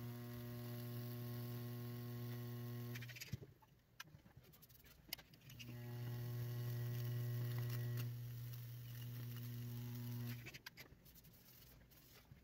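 High-voltage Lichtenberg burning rig humming loudly with a steady electrical buzz while current arcs through wet wood, burning branching figures into it. The hum cuts out about three seconds in, comes back after about five and a half seconds, and cuts out again after about ten seconds. A few sharp clicks sound in the pauses.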